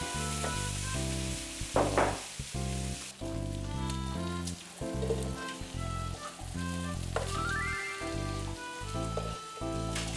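Food frying in a hot pan, a steady sizzling hiss that drops away sharply about three seconds in. Upbeat background music with a bouncy bass line plays throughout, with a short rising run of notes near the end.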